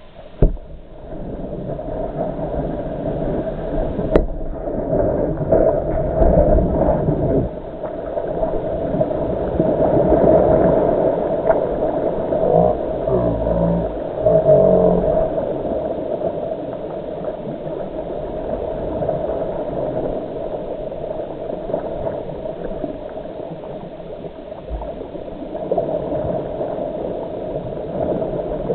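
Plastic whitewater kayak sliding off a rocky bank into a lake and being paddled: water splashing and gurgling around the hull and paddle blades, continuous throughout, with one sharp knock about four seconds in.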